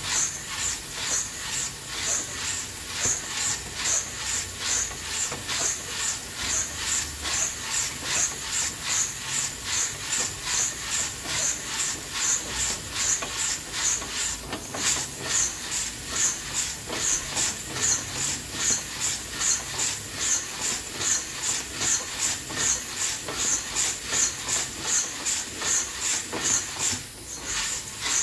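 Coffee beans roasting in an old hand-turned drum roaster on a wood stove, the beans sliding and rattling in a rhythmic hiss of about two pulses a second.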